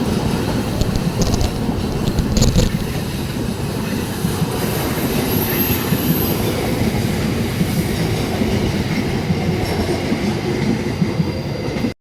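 A train's cars rolling past on the rails, with a steady rumble and the clatter of wheels over rail joints. A faint high wheel squeal comes in about five seconds in.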